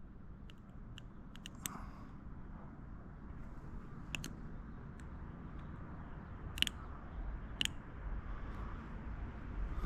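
Small sharp clicks and taps of the plastic pedestal of a windshield repair kit being handled and pressed onto the glass, a cluster of them about a second in and a few more spaced apart later, over a low steady background rumble.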